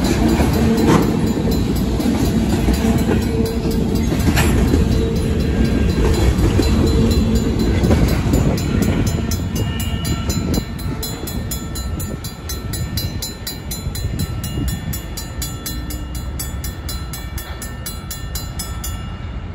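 Freight cars rumbling and clacking over the grade crossing. The last car passes about ten seconds in, and the rumble then fades as the train pulls away. The crossing's Safetran mechanical bell keeps ringing in rapid even strokes, clearer once the train noise drops.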